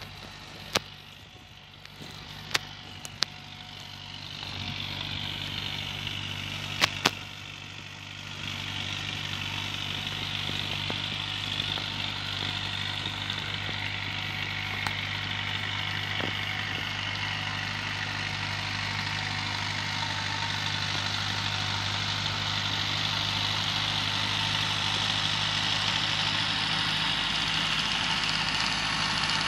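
Diesel engine of a forestry machine with a timber-loading crane running steadily, growing louder as it comes closer, with a whine above the engine hum. A few sharp clicks in the first seven seconds.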